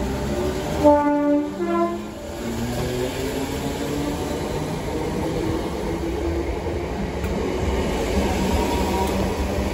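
Merseyrail Class 507 electric multiple unit pulling away from the platform. About a second in there is a brief horn call that changes note partway. Then the whine of its traction motors rises steadily in pitch as it accelerates past.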